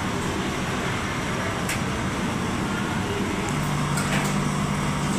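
Steady noise of kitchen machinery running, with a low hum that comes in about three and a half seconds in and a couple of light clicks.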